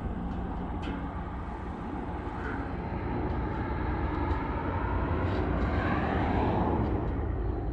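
Steady engine drone that grows louder over several seconds, peaking near the end, then begins to ease off.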